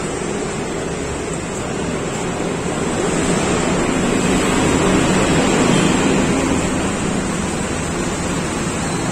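Steady roar of road traffic, with a faint low engine hum, swelling to its loudest about five to six seconds in as a vehicle passes.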